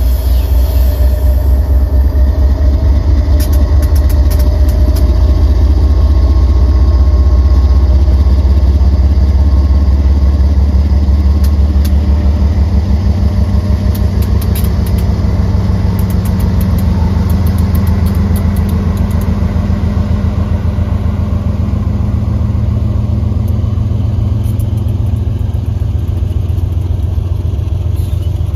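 GE ES44AC (GEVO) diesel locomotive engines working under load as the train starts moving, a loud deep throb with a fast pulse as the lead unit passes close by. Scattered sharp clicks sound over it.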